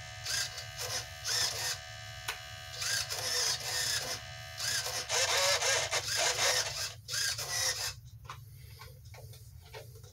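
Standard-size RC airplane servos (Airtronics 94102, Tower Hobbies TS-53 and Futaba S3010) whirring in a series of short bursts as they are swung back and forth, with a longer run about five seconds in, over a steady low hum. They are running on a single-cell 3.7 V LiPo and show no sign of weak moves.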